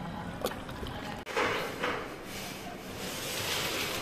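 A hand squelches and stirs through a bucket of wet paint as stainer is squeezed in, for about a second. Then the sound cuts off abruptly to a steadier background noise.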